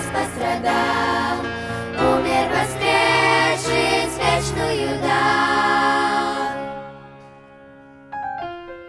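Closing bars of a Russian Easter song, with choir singing over instrumental backing, fading out about seven seconds in. Near the end a soft new tune of a few sparse notes begins.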